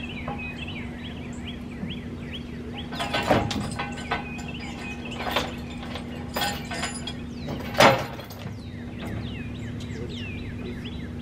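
Metal clanks and knocks from handling a steel log arch on a flatbed trailer, about four loud ones in the middle, over a bird's repeated chirping and a steady low hum.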